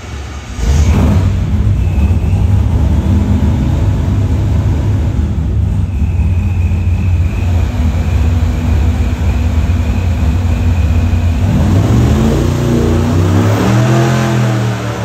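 Supercharged 540 ci big-block Chevy V8 running hard on an engine dyno: it comes in loud just under a second in and holds steady, with a thin high whine over it in the middle. Near the end the pitch swings up and down as the revs change.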